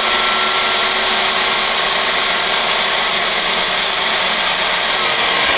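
Electric blender running loud and steady with a high whine, chopping and blending a chunky mix of oil, chopped celery and green onion into sauce. The whine starts to fall in pitch near the end.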